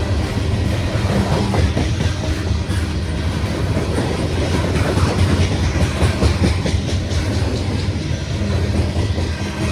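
Loaded coal hopper cars of a slow-moving freight train rolling past: a steady low rumble of wheels on rail with repeated clicking as the wheels cross rail joints.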